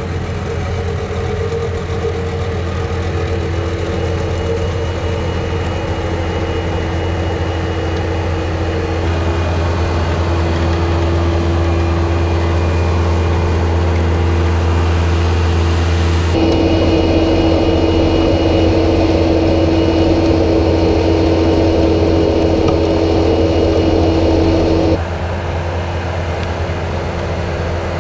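Bobcat T190 compact track loader's diesel engine running steadily while its soil conditioner works through turf. The drone gets louder for a stretch from about the middle and drops back near the end.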